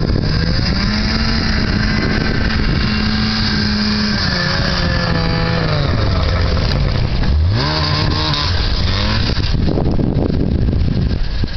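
1991 Arctic Cat 550 EXT snowmobile's two-stroke engine revving up and holding, easing off, then revving up sharply again and stopping a little before the end, under heavy wind noise on the microphone.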